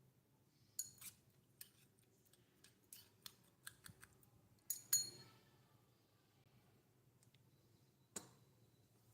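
Miniature kitchen utensils clicking and clinking, about a dozen light, irregular taps, with brief high metallic rings about a second in and, loudest, near five seconds, then one more click near the end.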